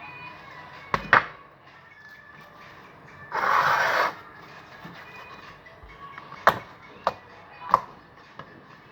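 Homemade borax slime being mixed and kneaded by hand, still a bit stiff. It gives a few sharp pops, two about a second in and three more after about six seconds, and a louder rubbing, squishing noise just under a second long about three seconds in.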